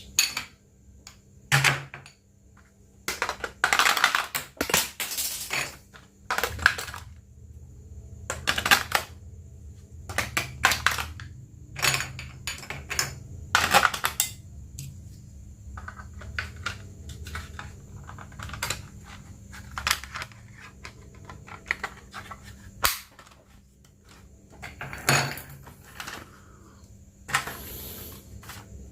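Irregular clicks, clacks and short rustles of hard plastic parts and packaging being handled while a toy RC car is unboxed, over a faint steady hum.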